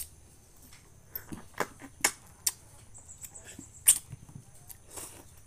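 Wild passion fruit being torn open by hand and its pulp eaten off the rind: a scatter of short, sharp cracks and wet mouth sounds, with a quick run of fine ticks near the middle.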